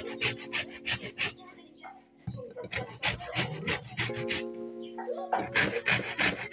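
Frozen bread rasping against a metal box grater to make breadcrumbs: quick scraping strokes about four a second, in runs with a short pause about two seconds in. Background music with held notes plays underneath.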